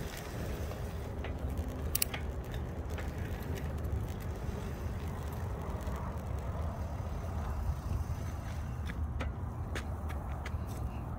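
Wind buffeting the microphone and tyre noise from an e-bike riding along a road, with a few sharp clicks.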